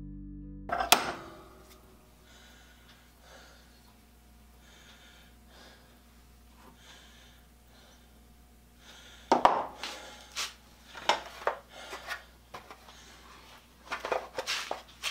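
Hand hacksaw cutting a flat on the end of a steel axle clamped in a vise, with faint slow strokes about once a second. From about nine seconds in, loud separate clanks and knocks as the hacksaw and the cast cranks are set down and handled on the wooden workbench.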